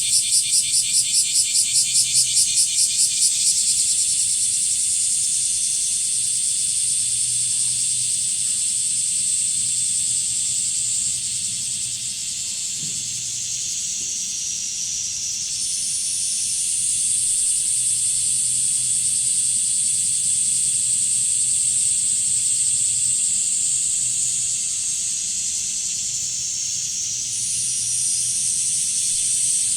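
Chorus of blackish cicadas (kumazemi) singing. A fast pulsing call for the first few seconds gives way to a continuous shrill buzz that dips and steps back up in pitch twice.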